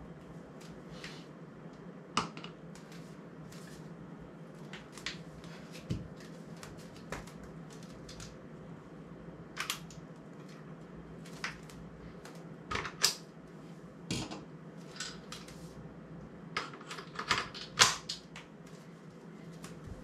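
Scattered, irregular clicks and knocks of metal camera gear being handled: a tripod and video head moved and fitted with quick-release mounts. A steady low hum runs underneath.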